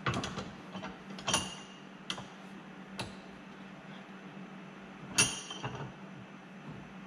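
Sharp clicks and knocks of hard parts, about half a dozen and unevenly spaced, the loudest about five seconds in. They come from an outboard lower unit and its water pump housing being handled and worked together while the drive shaft is turned.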